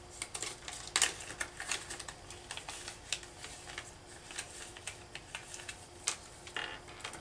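Clear plastic parts bag crinkling and crackling in the hands as it is unfolded and opened, in a run of irregular sharp crackles, the loudest about a second in.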